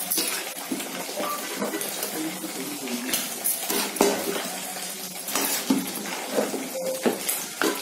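A metal ladle scraping and clinking against a metal pot as half-cooked biryani rice is stirred and turned up from the bottom so it does not stick. The ladle gives irregular scrapes and knocks, several of them sharper than the rest.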